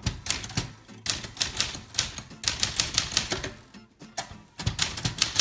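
Typewriter typing: runs of rapid keystroke clacks, several a second, with a short pause about four seconds in.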